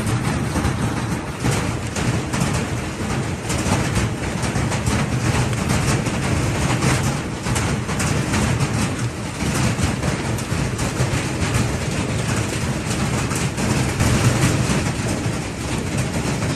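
Heavy hail pounding down: a dense, continuous rattle of many small impacts over a deep rumble.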